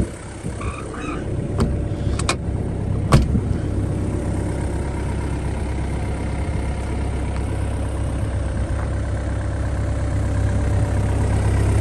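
Yanmar diesel engine of a John Deere 85G crawler excavator idling steadily with a low drone, growing louder near the end. A few clicks and one sharp knock about three seconds in.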